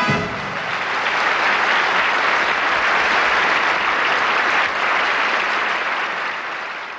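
A large audience applauding as the band's last chord stops, a dense, even clapping that starts to die away near the end.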